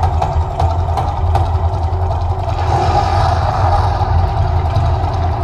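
The Mirage volcano attraction erupting: a loud, steady deep rumble with scattered sharp cracks as its fire jets flare and its water plumes shoot up.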